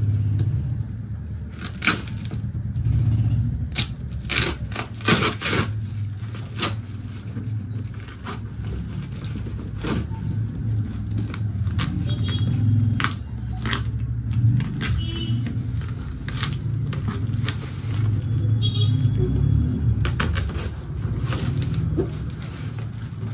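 Plastic stretch wrap and plastic strapping being pulled and torn off a cardboard carton, with many irregular crinkles, rips and snaps over a steady low rumble.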